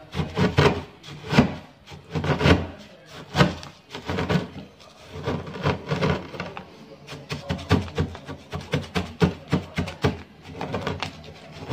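Dry instant noodles being pounded with a long black rod in a plastic cup on a wooden table: repeated thuds with crunching as the noodles are crushed. The strokes come faster in the last few seconds.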